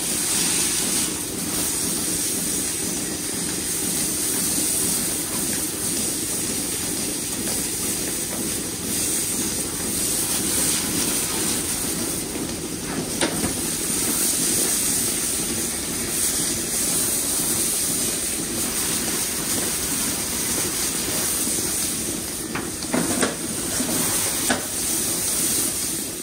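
A strong jet of water from a hose wand hissing steadily as it sprays, splashing against the milking parlour's steel stalls and floor, with a few brief knocks near the end.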